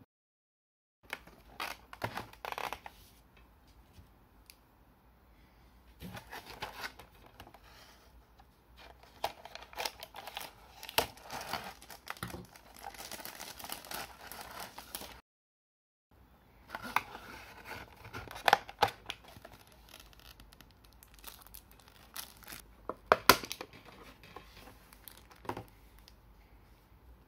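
Cardboard toy box and its plastic and paper packaging being opened and handled: bursts of rustling and crinkling with several sharp clicks, the loudest about two-thirds of the way through. It is broken twice by short spells of dead silence.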